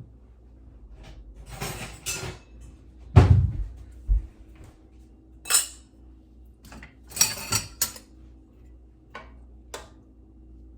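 Kitchen utensils and glass canning jars knocking and clinking, about eight separate knocks and clinks spread over several seconds, the loudest a dull knock about three seconds in, as hot jam is ladled into jars.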